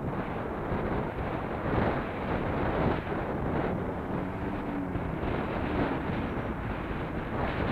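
Steady wind buffeting on the microphone of a camera mounted on a moving motorcycle, mixed with the bike's engine and road noise.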